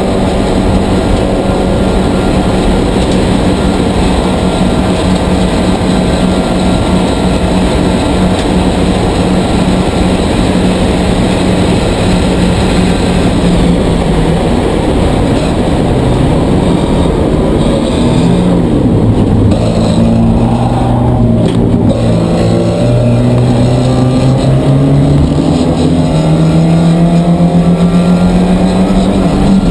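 A Porsche 944 Spec race car's 2.5-litre four-cylinder engine heard from inside the cabin, at a steady high pitch at full throttle, mixed with wind and road noise. About eighteen seconds in the revs fall and waver as the car slows. They then climb steadily and drop sharply just before the end at an upshift.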